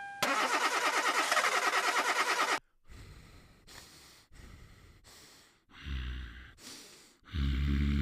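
Hyundai Accent failing to start: a rapid, even clicking, about eight clicks a second, for two or three seconds, which cuts off suddenly. Fainter scattered sounds follow, and a low hum starts near the end.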